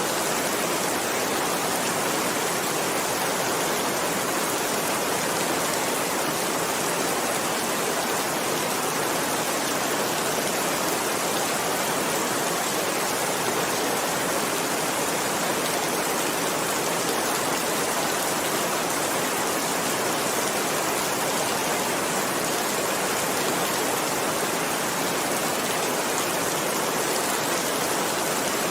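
Rain falling steadily, an even hiss that holds at one level throughout.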